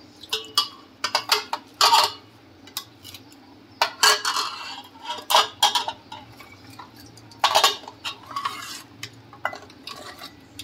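A steel ladle clinking and scraping against a steel pot as blocks of ice are put into milk and stirred. Irregular sharp knocks and clatters, with louder clusters about two, four and seven and a half seconds in.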